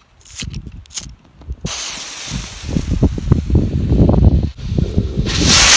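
Firework rocket's fuse sputtering with faint clicks, then about a second and a half in the rocket motor ignites with a sudden loud hiss that grows louder near the end. Wind buffets the microphone with a low rumble under the hiss.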